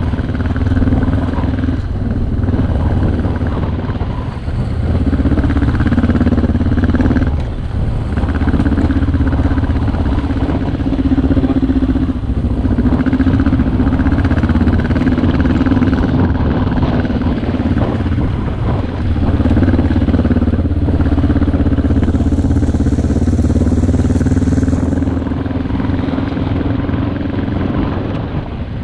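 Twin-cylinder adventure motorcycle engine running on the move, steady and loud. Its level dips briefly a few times as the throttle eases off.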